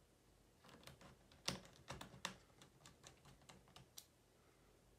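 A run of a dozen or so small, irregular clicks and taps from a precision screwdriver and small metal parts as the HP EliteBook x360 laptop is taken apart at its hinge. The clicks start about a second in, the sharpest comes about a second and a half in, and they stop about four seconds in.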